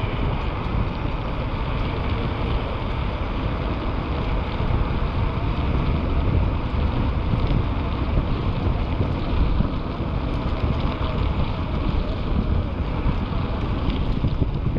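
Steady wind rushing over the microphone of a camera on a moving mountain bike, with a low rumble and a few faint clicks.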